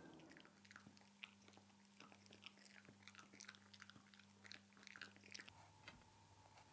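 A dog gnawing on a chew stick: faint, irregular crunching clicks.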